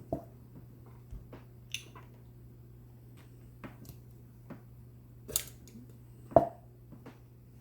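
Scattered small clicks and taps from handling small paintball hopper parts and O-rings, the loudest about two-thirds of the way through, over a steady low hum.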